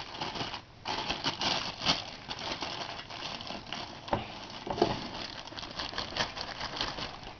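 Packaging rustling and crinkling with many small clicks and knocks as a record player is handled and pulled out of its box.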